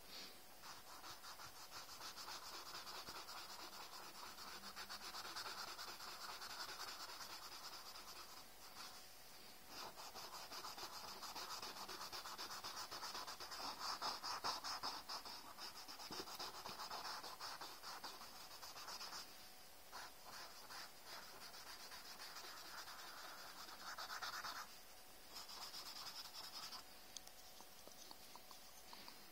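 Cotton swab rubbed quickly back and forth over drawing paper, blending graphite pencil shading: a faint, fast scratchy rubbing that breaks off briefly a few times.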